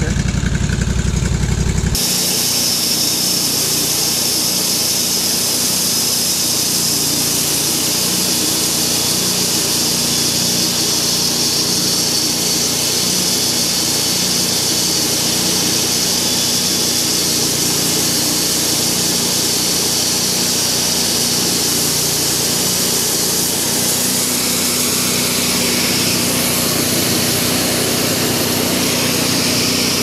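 Green Monster Wide portable bandsaw mill running steadily: its engine's hum under a bright hiss. The sound changes abruptly about two seconds in, losing its deep rumble and turning hissier.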